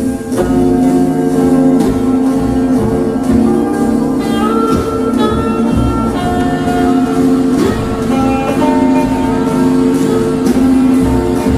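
Background music led by a guitar, with held notes and a moving melody line.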